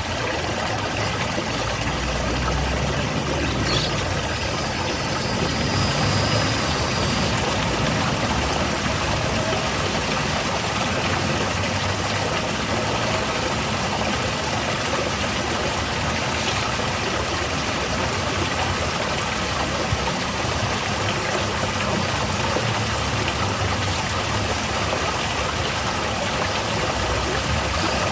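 Small garden waterfall splashing steadily, an even rushing of falling water with no change in level.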